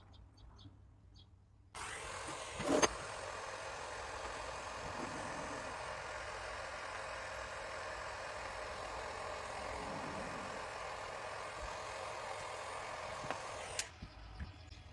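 A gas torch flame hissing steadily, as used to silver-solder the armature's joints. It comes on abruptly with a sharp click just after, runs for about twelve seconds and cuts off suddenly.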